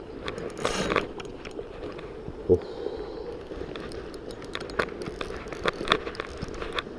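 Handling noise from a spinning reel and rod, picked up up close: irregular clicks and knocks from hands working the reel and rod grip. There is a rustling burst about a second in and one sharp knock about two and a half seconds in.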